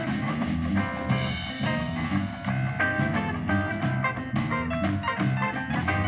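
Guitar music with a steady drum beat playing from a USB pendrive through a Continental CD5408 car radio's speakers.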